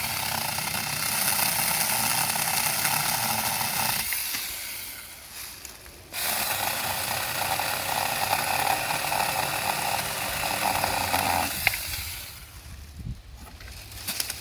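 Saker 6-inch cordless electric mini chainsaw running and cutting through seasoned beech wood. It winds down about four seconds in, starts again sharply about two seconds later, and cuts on until about three seconds before the end, followed by a few light clicks.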